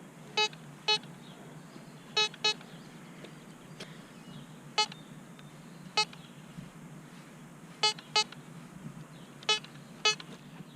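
Hobby metal detector beeping in short, pitched chirps, about ten of them at irregular intervals and often in quick pairs, as the coil is swept over the ground. It keeps going off without a clear target to pinpoint.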